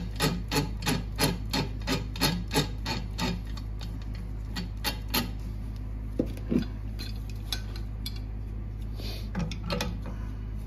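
Metal nuts being run down the threaded shank of an injector-sleeve puller: a quick series of metallic clicks, about three a second, for the first few seconds, then scattered clicks and scrapes of metal on metal.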